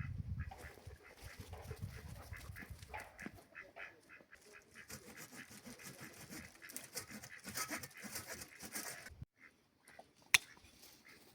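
Farmyard animals calling, a busy run of short calls, with a single sharp click a little after ten seconds in.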